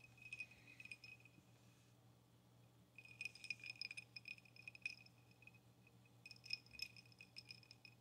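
Ice cubes jingling and clinking in a glass: quick runs of small clicks, each with a brief glassy ring. They come in three spells: a short one at the start, a longer one from about three seconds in, and another near the end.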